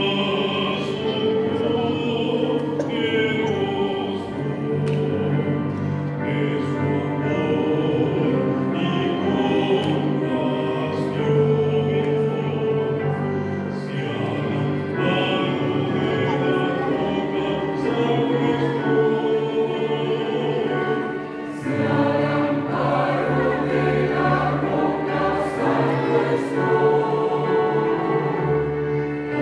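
Mixed church choir singing a hymn in sustained chords with piano accompaniment, with a short break between phrases about two-thirds of the way through.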